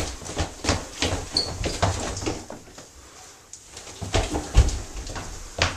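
Scuffling on a wooden floor: irregular thuds and shuffling footsteps as two people grapple and push, with one heavier thud about two thirds of the way through.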